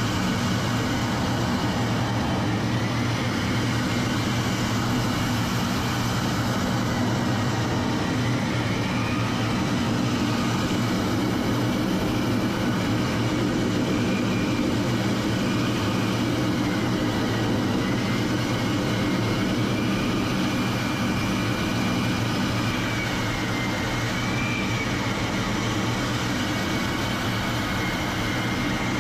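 Jet engine running steadily: a constant low rumble with a faint high whine that slowly wavers up and down in pitch.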